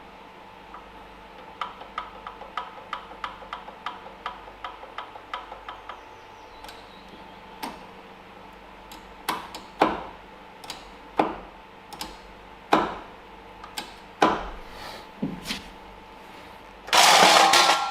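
Hand tools and metal parts being handled on a small lawnmower engine: a run of light, even clicks, about three a second, then scattered louder knocks and taps, and a short loud scraping rattle near the end.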